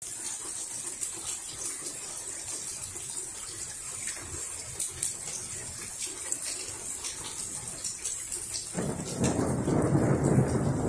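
Steady rain hiss with scattered drop ticks. About nine seconds in, a rumble of thunder comes in suddenly and builds louder.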